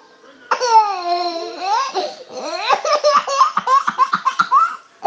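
A young child laughing: a long high cry falling in pitch about half a second in, then a quick run of giggles.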